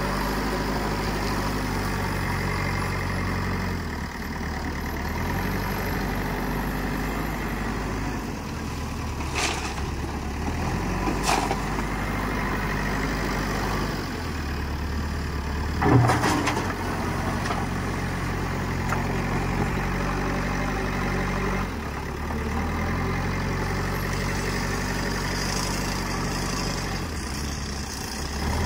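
JCB 3DX backhoe loader's diesel engine running and revving up and down in steps as the loader arm and bucket work. A few sharp knocks cut through, the loudest a little past halfway.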